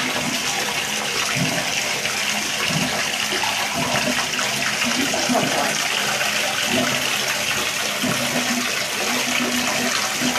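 Water running steadily into a bathtub, a constant flow with no break.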